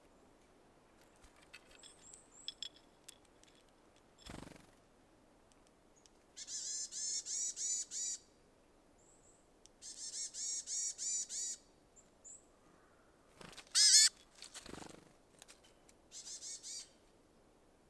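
Small songbird calling in two runs of rapidly repeated harsh notes, about six a second, each run lasting under two seconds, with a short, louder call a little after the middle and a brief third run near the end. A couple of dull knocks fall between the calls.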